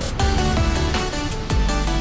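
Electronic background music with a steady beat and a deep bass that drops in pitch.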